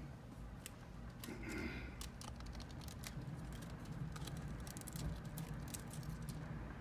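Irregular light clicks and ticks of a blade trimming excess window-tint film on a car windshield, over a steady low hum.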